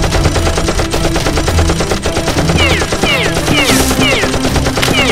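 Dubbed-in automatic gunfire sound effect: a continuous rapid string of machine-gun shots over a music track. From about two and a half seconds in, short falling tones repeat about twice a second.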